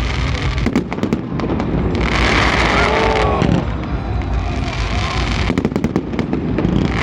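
A fireworks display going off: repeated bangs and clusters of sharp crackles, with stretches of a rushing hiss.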